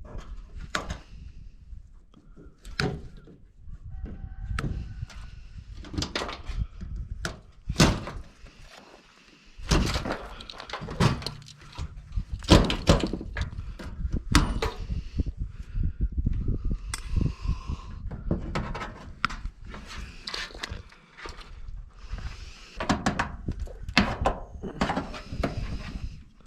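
Irregular clanks, thunks and rattles of the sheet-metal panels and parts of an electric range being handled and pulled apart.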